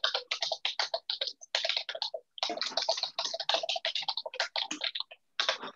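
Rapid typing on a computer keyboard: quick runs of key clicks with a couple of brief pauses.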